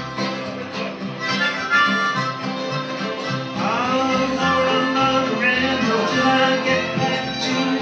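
Live string band playing an instrumental break, with harmonica prominent over strummed acoustic guitar, fiddle and a plucked bass line. A few notes slide upward about halfway through.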